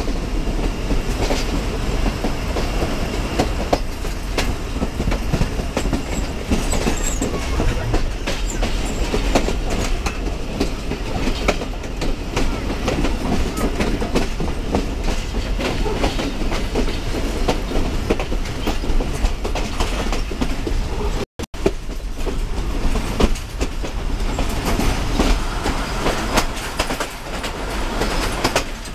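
Pakistan Express passenger coach running along the track, heard from its open doorway: a steady rolling rush with wheels clacking over rail joints. The sound cuts out for an instant about two-thirds of the way through.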